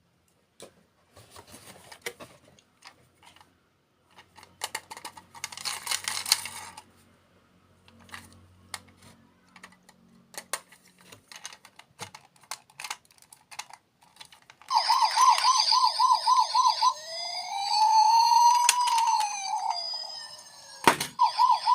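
Scattered small clicks and a brief rustle of handling, then about 15 s in an electronic siren starts. It goes through a fast warbling yelp, a slower rising-and-falling wail and a quick falling sweep, then returns to the yelp near the end.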